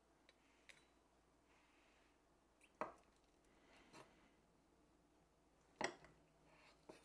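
Kitchen knife cutting a ball of mozzarella on a wooden cutting board. The blade knocks on the board a few times, loudest about three seconds in and again near six seconds, with faint soft slicing sounds between.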